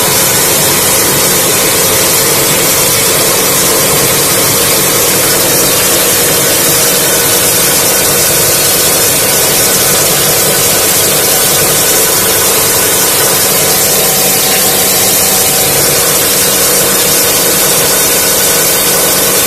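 Grain grinding mill running steadily under load, grinding material: a loud, even rushing whir with a constant hum underneath, unchanging throughout.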